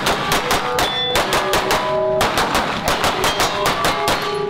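Rapid pistol fire from a Taran Tactical Pit Viper 2011 with a compensator, about five shots a second, with steel targets ringing after the hits.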